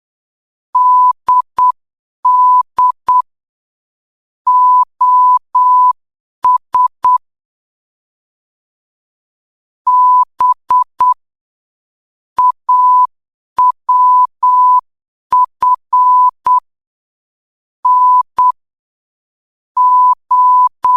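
Morse code practice tone: a single steady beep keyed on and off in short dots and longer dashes, grouped into letters with short gaps between them and one longer pause about a third of the way in.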